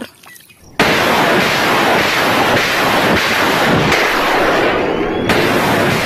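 Truck-mounted multiple rocket launchers firing a salvo: the loud, continuous roar of rockets launching one after another, starting about a second in.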